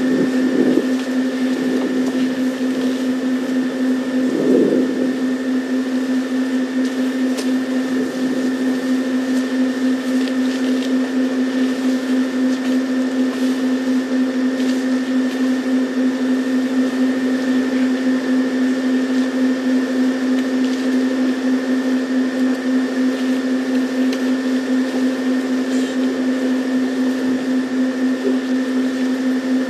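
A steady, loud machine hum holding one fixed pitch with higher overtones, unchanging throughout, with a brief low swell about four and a half seconds in.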